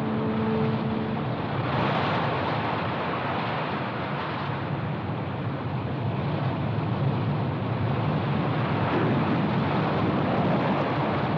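Heavy ocean surf: large waves breaking, a steady loud rushing noise that swells slightly and cuts off suddenly at the end.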